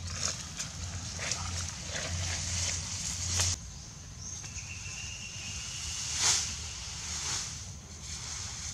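Rustling and crackling of dry leaves, brush and straw as bare feet step through undergrowth and bundles of straw are carried and set down, with a few sharper crunches. A steady high drone runs underneath.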